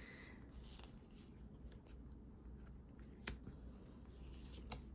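Tarot cards being handled and laid on a tabletop: faint sliding with a few sharp card clicks, the clearest about three seconds in and another near the end.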